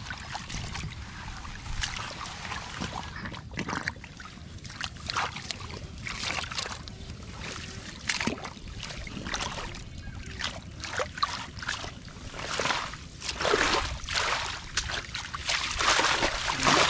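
Hands and feet sloshing and squelching in shallow muddy water, in irregular splashes that grow louder and busier near the end, over a steady low rumble of wind on the microphone.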